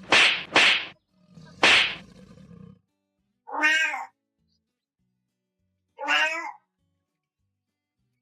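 A cat hissing in three short sharp bursts, then meowing twice, about two and a half seconds apart.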